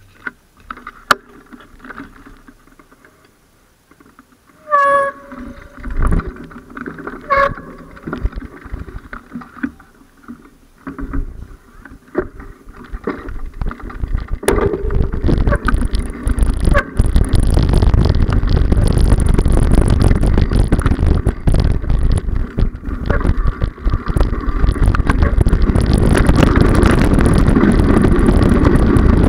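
Wind buffeting the microphone along with rolling noise from a ride on a handlebar-mounted camera. It is quiet at first, with scattered clicks and two short pitched squeaks about five and seven seconds in, then builds into a steady loud rush from about fifteen seconds in as the ride picks up speed.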